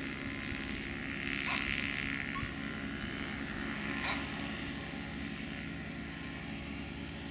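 Rotax 277 single-cylinder two-stroke engine of an Earthstar Laughing Gull ultralight running steadily, heard at a distance as the aircraft rolls away. Two short sharp sounds cut in, about a second and a half in and about four seconds in.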